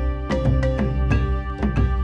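Background music: a tune of quick plucked or struck notes over a steady low bass, several notes a second in a regular beat.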